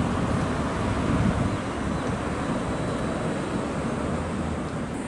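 Steady wind on the microphone: a low rumbling hiss that wavers slightly, with no separate events.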